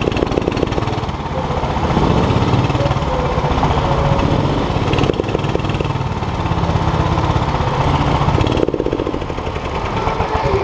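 Go-kart engine running loud and close to the onboard microphone at low speed, a fast, rattly pulsing rumble; it eases off a little near the end.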